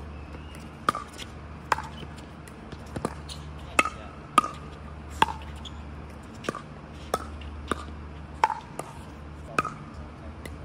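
Pickleball paddles hitting the plastic ball back and forth in a doubles rally, with the ball bouncing on the hard court between some shots. It comes as a string of sharp pops with a short ring, roughly one every half second to a second.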